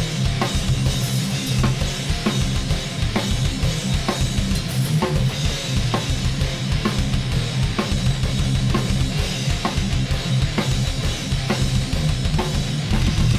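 Metal drum kit played fast: rapid, continuous double-bass kick drum under regular snare hits and cymbals, at around 210 bpm, over a scratch guitar track.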